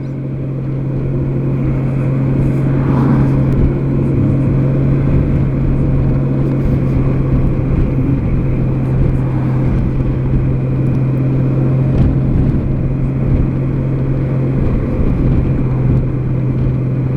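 2003 Honda Gold Wing's flat-six engine running steadily while the motorcycle is ridden, a strong even hum over low wind and road rumble. It grows louder over the first couple of seconds, then holds steady.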